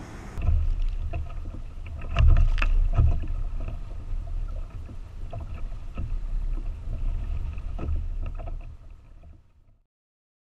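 Sounds of a fishing kayak on choppy water: a low rumble with water against the hull and scattered knocks and clicks of gear being handled. It fades out to silence near the end.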